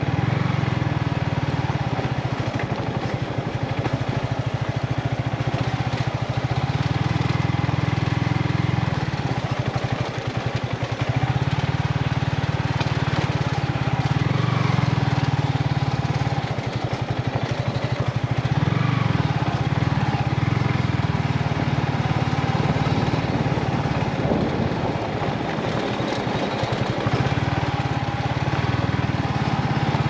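Yamaha MT-15's single-cylinder engine running at low speed on the moving bike, a steady low pulsing note that dips for a second or two about ten, seventeen and twenty-five seconds in as the throttle eases.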